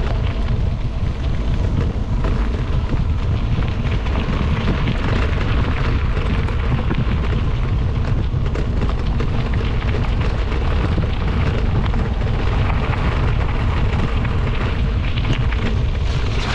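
Wind buffeting the microphone of a camera on a moving e-bike: a steady, heavy low rumble with rough hiss over it.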